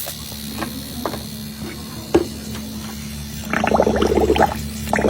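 Small 12 V tyre-inflator air compressor running with a steady hum, turning into a louder, fast rattling about three and a half seconds in.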